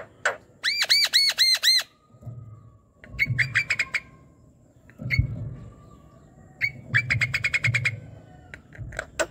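Javan myna singing: about a second in, a quick run of about six rising-and-falling whistled notes, then bursts of rapid chattering notes around three and seven seconds in, with low thumps beneath them.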